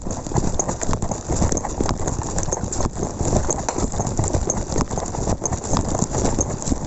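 Footsteps on rough ground with the rustle and knock of gear close to the microphone, as someone walks at a steady pace.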